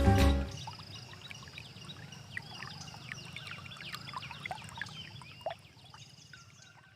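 Background music stops about half a second in, leaving many small birds chirping and twittering over a steady low rush like flowing water.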